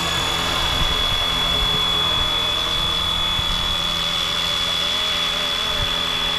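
Flywing Bell UH-1 Huey scale RC helicopter's electric motor and rotors running in flight, flying an automatic circle: a strong steady high whine over a lower tone that wavers up and down. Low rumbling wind buffets the microphone.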